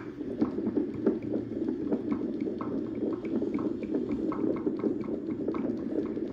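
Bistos BT 350 fetal monitor's speaker playing back the Doppler ultrasound signal while the FHR probe is tapped by hand with no patient: a dense, steady rushing noise with soft pulses about twice a second.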